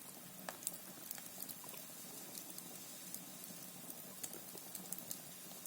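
Wood fire burning in a Russian stove: a faint steady hiss with scattered small crackles.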